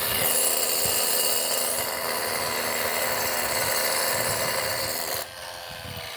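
Hammer drill boring into concrete, a loud steady grinding that stops about five seconds in.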